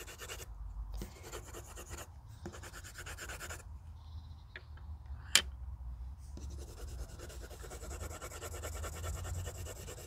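Colored pencil shading on paper, a fast, steady scratching of the pencil lead. The scratching pauses for a couple of seconds in the middle, where a single sharp click is heard, then resumes.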